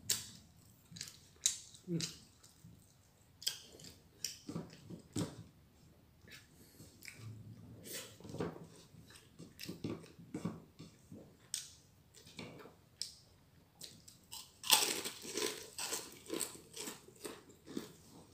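A person chewing and biting food close to the microphone, with irregular crunchy bites and a louder, longer spell of crunching near the end.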